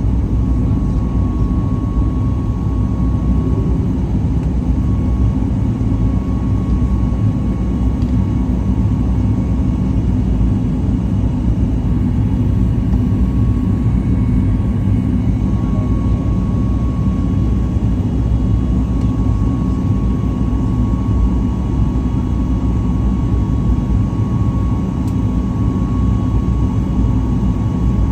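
Cabin noise of a Boeing 737 MAX 8-200 jet airliner: its CFM LEAP-1B engines and rushing air give a steady low rumble, with a faint steady whine over it.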